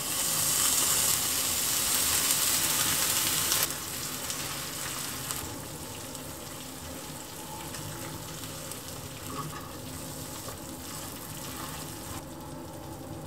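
Shredded cheese sizzling as it fries in a hot nonstick frying pan, loud for the first few seconds, then a quieter steady sizzle.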